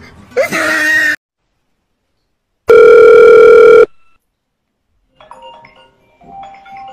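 Loud, steady electronic phone tone: one buzzing note held for just over a second. Fainter short tones follow near the end.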